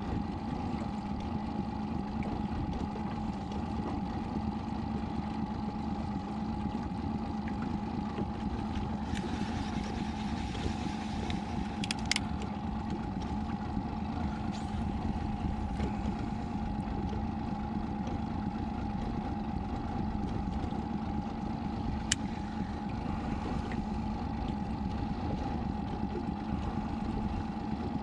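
Boat motor running steadily, a constant low hum with a steady higher whine above it. A couple of brief clicks, about twelve and twenty-two seconds in.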